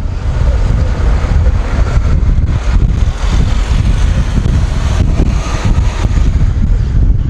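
Wind buffeting the microphone of a camera on a moving bicycle: a loud, unsteady rumble.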